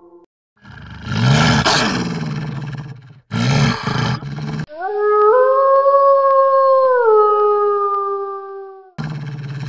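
Wolf growling in two rough bursts, then one long howl that rises at the start, holds, and steps down in pitch about two seconds before it ends; another growl starts near the end.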